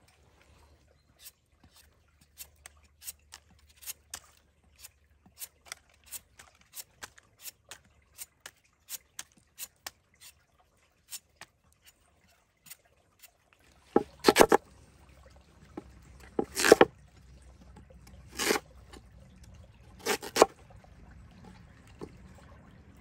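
Knife cutting a peeled sweet potato: a run of light, quick cuts, then four loud chops through it onto a wooden cutting board. A stream trickles faintly beneath.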